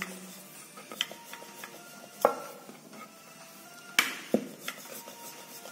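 Wooden rolling pin rolling out dough on a wooden board, with a few sharp wooden knocks as the pin and the dough round are handled. The loudest knocks come about two and four seconds in.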